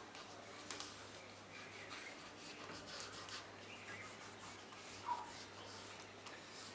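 Oil pastel scratching and rubbing on paper in short repeated strokes, faint. A single short squeak about five seconds in is the loudest moment.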